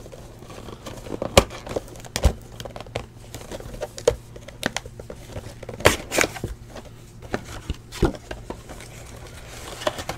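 Cardboard hobby box of 2016 Panini Clear Vision football cards being torn open and its foil-wrapped packs pulled out: irregular clicks, tearing and crinkling.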